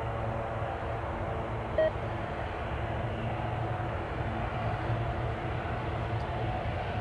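Pilatus PC-12's single Pratt & Whitney PT6A turboprop engine running steadily at low taxi power, a low hum with a whine on top. A short high beep sounds about two seconds in.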